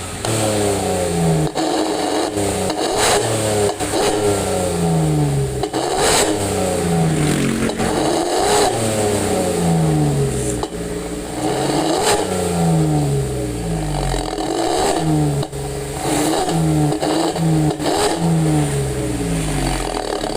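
Datsun Go's 1.2-litre three-cylinder engine blipped again and again through an aftermarket SUOS 'ngorok' growl muffler, the note falling back after each blip, with a few short cracks in between. The catalytic converter is still in place and only the muffler is changed.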